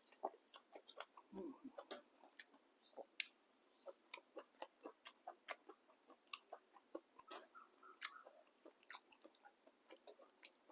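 Quiet eating sounds from a person eating a bowl of boat noodles: soft chewing with small, irregular clicks a few times a second.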